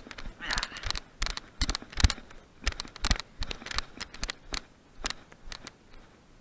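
Footsteps on dry ground and brittle twigs: a run of uneven crunches and knocks, with brief brushing through bare branches.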